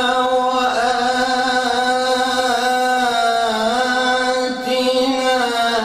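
A man reciting the Qur'an in melodic tajweed style, drawing out long vowels with slow, small rises and falls in pitch.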